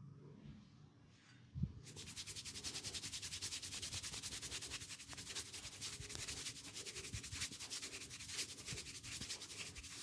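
Hands rubbing briskly and rhythmically during a massage, a fast even scratchy back-and-forth that starts about two seconds in, just after a single soft thump.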